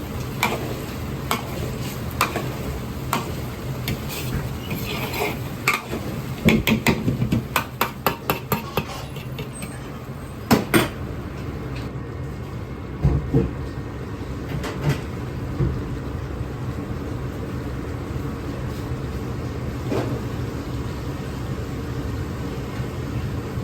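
Metal kitchen utensils and cookware clanking and clinking. There are single knocks about a second apart, then a quick run of clinks, then a few louder knocks, over a steady low hum.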